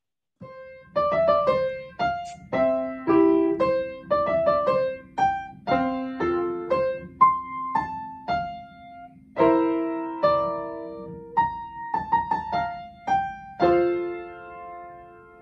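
A piano playing a slow melody, one struck note after another with each note ringing out, over a held low note, with fuller chords about ten seconds in and again near the end.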